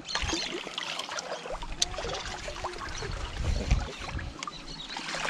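Water splashing and sloshing as a hooked fish is worked in at the water's edge, with scattered light clicks and knocks and a low rumble about three seconds in.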